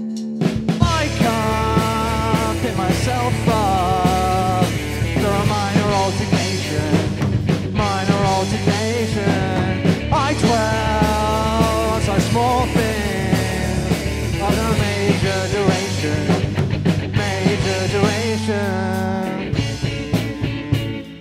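A rock band playing live: electric guitars and a drum kit together, with a wavering lead melody over a steady low held note. The full band comes in just after the start and thins out near the end.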